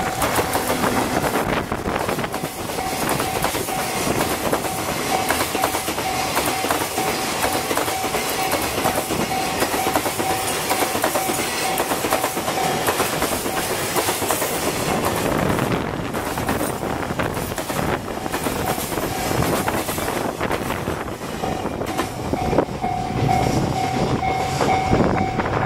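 Freight train behind an EF64 electric locomotive rolling past, its container and tank wagons clattering over the rail joints, with wind buffeting the microphone. A steady high-pitched tone sounds through most of it and breaks off for several seconds in the middle.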